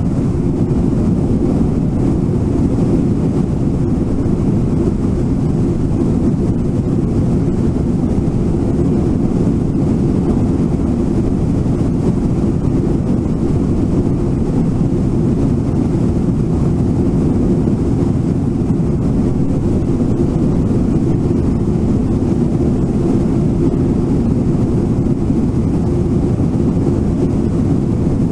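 Steady low rush of river water pouring over Brooks Falls, an even rumble that doesn't change.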